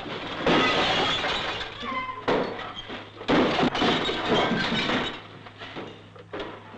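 Boys shouting and shrieking in several loud bursts as they scuffle and wrestle in a courtyard.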